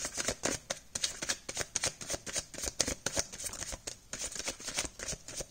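Tarot deck being shuffled by hand: a quick, uneven run of card clicks that stops near the end.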